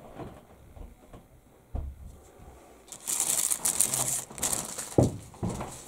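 Clear plastic bag crinkling as a plastic model-kit sprue is handled inside it, loudest for about a second and a half midway, with a couple of dull knocks.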